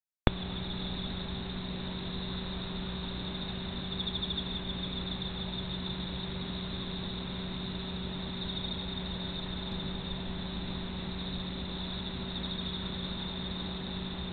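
A sharp click at the very start, then a steady hiss with a low hum: the recording's own background noise. No distinct sound from the sleeping kitten stands out.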